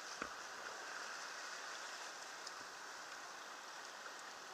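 Steady rush of river water flowing past a raft, heard close to the waterline, with a single sharp knock just after the start.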